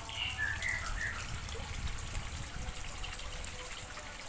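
Water trickling steadily, with a few short high chirps in the first second.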